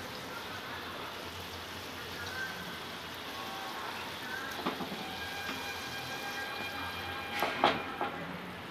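Mustard-poppy gravy simmering in a non-stick pan with a steady bubbling hiss. Sharp clicks come about halfway through and a louder cluster near the end, as the whole fish are turned by hand in the pan.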